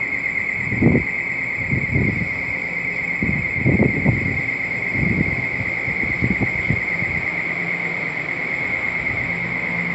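A steady, high-pitched pulsing trill runs throughout. Under it come low rumbles and knocks from an NJ Transit bi-level commuter train as it starts to move out of the station.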